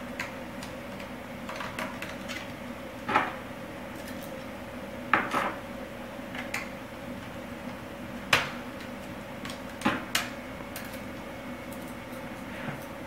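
Sharp clicks and small clinks of a screwdriver and tiny screws on a laptop's plastic bezel as the screen frame's screws are taken out, about eight irregular taps over a steady low hum.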